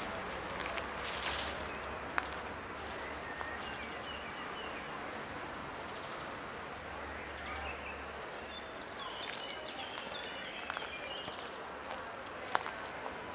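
Outdoor ambience: a steady background hiss with faint bird chirps, mostly in the second half, and two sharp clicks, one about two seconds in and a louder one near the end.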